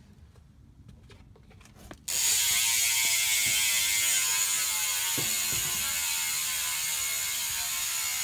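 Profile Elite rear hub freewheeling, its six pawls and 206 points of engagement clicking so fast that they make one loud buzz, like a swarm of bees. It starts suddenly about two seconds in and drops slowly in pitch as the spun wheel slows.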